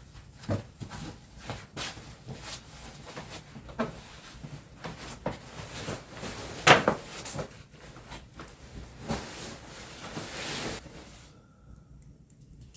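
Scattered knocks and clicks of objects being handled in a small room, with one sharper knock about two-thirds of the way through and a short hiss near the end.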